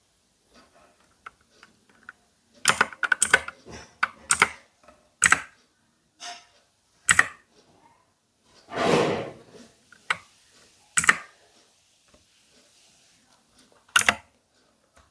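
Keys of an Ant Esports MK3400 Pro V3 mechanical keyboard being pressed: sharp single clacks and short quick runs of clacks with pauses between them, and one longer, noisier clatter about nine seconds in.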